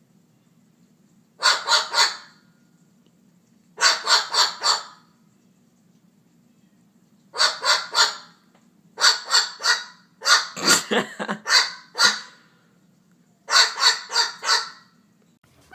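Parrot giving harsh, bark-like calls in six bursts of three to five quick calls each, imitating a dog barking. A faint steady low hum sits underneath.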